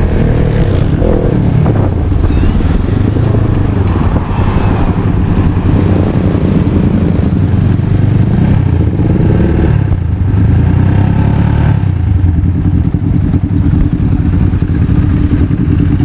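Motorcycle engine running under way, its pitch rising and falling with throttle and gear changes, then holding steady in the last few seconds.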